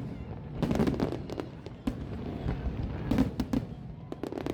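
Aerial fireworks going off in irregular clusters of sharp bangs and crackles, over a steady low rumble.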